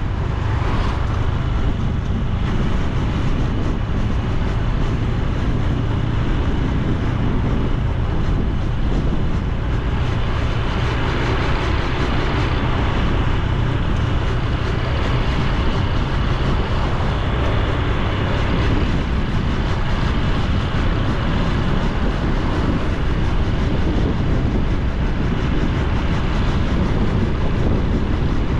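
Honda Super Cub C125's single-cylinder four-stroke engine and exhaust running steadily under way, with wind rushing over the microphone.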